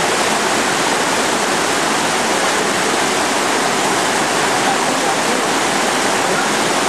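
River rapids pouring over and between boulders into a pool: a steady, loud rush of water.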